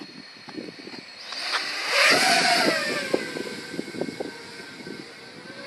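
FPV racing quadcopter flying past: its motor and propeller whine swells to a peak about two seconds in, then drops in pitch and fades as it pulls away.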